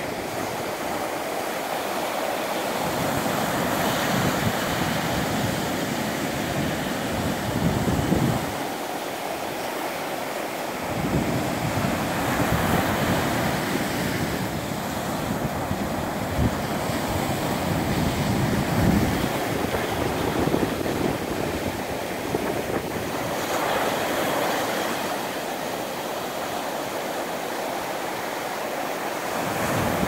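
Ocean surf: waves breaking and washing up a sandy beach in a continuous wash that swells and eases, with wind buffeting the microphone at times.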